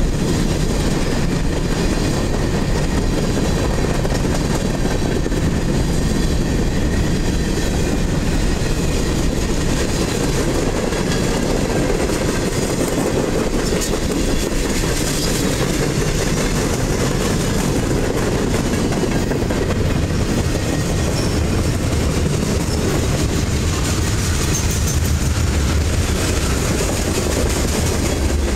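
Freight train cars (covered hoppers, open-top hoppers and tank cars) rolling past at speed: a steady, loud rumble of steel wheels on the rails with the clickety-clack of wheels over rail joints.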